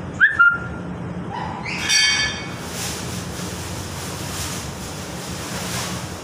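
Water splashing and trickling into a bucket from the boiler's element opening, an even hiss over a steady low machine hum. Two short, sharp high squeaks come near the start, and a brief high whine about two seconds in.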